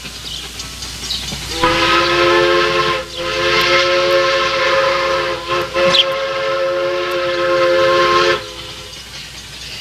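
Chime train whistle sounding one long multi-note blast, a steady chord that starts about a second and a half in, breaks briefly twice, and stops about a second and a half before the end.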